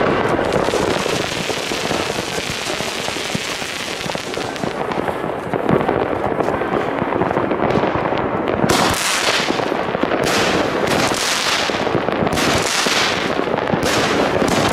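Weco Barbarian firework battery (cake) firing. For about the first eight seconds there is a steady hissing noise, then shots come roughly once a second, each a sharp bang followed by a trailing crackle.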